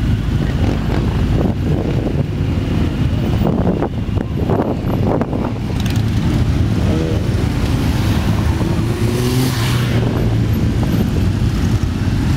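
Many motorcycle engines running together as a large group rides slowly past, a steady low rumble with one engine revving up, rising in pitch, in the middle.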